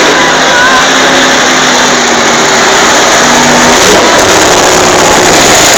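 Monster truck engine running loud and steady, with dense mechanical noise throughout.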